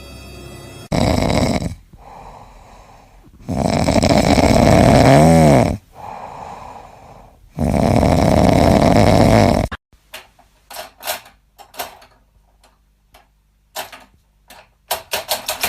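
A pet snoring, with three loud noisy breaths a few seconds apart. From about ten seconds in comes a run of quick, sharp clicks and taps that grows busier near the end.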